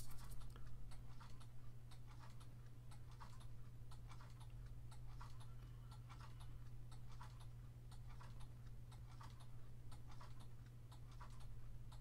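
Faint, regular light ticking, about two to three ticks a second, over a steady low hum.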